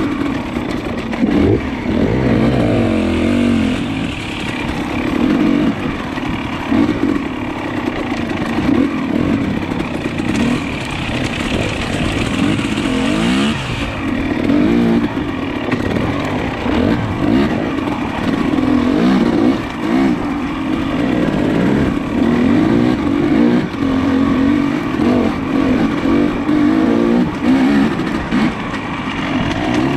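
Dirt bike engine running under constant throttle changes, its pitch rising and falling over and over as it climbs and slows.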